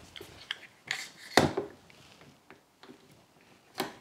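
One-handed trigger bar clamp being set on the edge of a particleboard panel and squeezed tight: a few short plastic-and-wood knocks and clicks, the loudest about a second and a half in, another just before the end.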